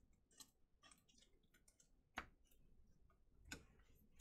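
Near silence with a few faint clicks and rustles of trading cards and foil packs being handled, one sharper tick about two seconds in.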